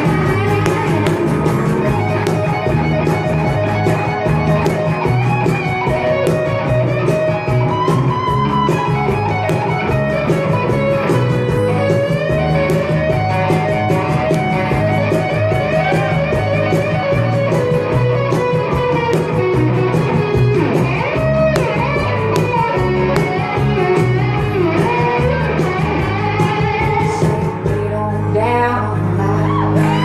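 Live band music with an electric guitar playing a lead line, its notes bending up and down in pitch over a steady accompaniment.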